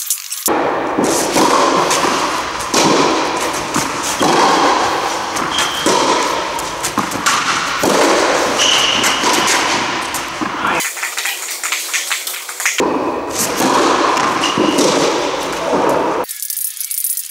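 Tennis rally on a clay court: tennis balls struck by rackets and thudding on the court, over a loud, uneven rushing noise.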